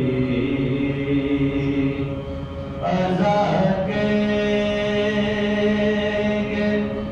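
Soz, an unaccompanied Urdu mourning chant, sung by men in long held notes. The singing dips briefly about two seconds in, and a new, higher held note starts near three seconds.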